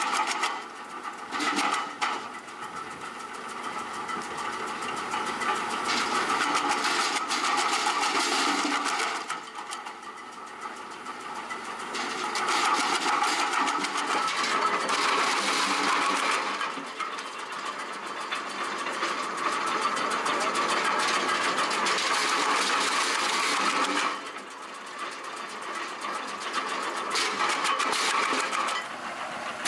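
Tractor-PTO-driven REMET RP-200 roller wood chipper chipping branches: a loud, continuous mechanical rattle that swells as each branch is drawn into the rollers and cut, then drops back to the machine running in short lulls between feeds, several times over.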